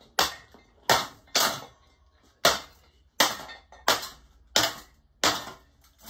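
Eight sharp hammer blows on the motor housing of an HPM ceiling fan, with a longer gap about two seconds in.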